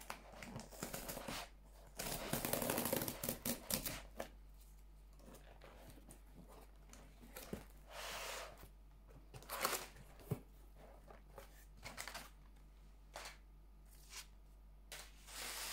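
A cardboard parcel opened by hand: cardboard flaps scraping and tearing, and crumpled kraft packing paper rustling. The longest, loudest burst of rustling comes about two seconds in, followed by shorter bursts and a few light knocks.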